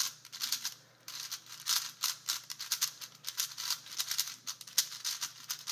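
ShengShou 4x4 V5 speed cube being turned fast, its plastic layers clicking and clacking in rapid runs, with a short pause about a second in. It is brand new and not yet broken in or lubed, so it still locks up on some turns.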